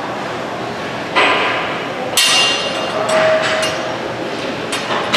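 Metal gym equipment clanking: a handful of sharp knocks with a short metallic ring, from a steel handle and plate-loaded bar being handled, over steady gym room noise.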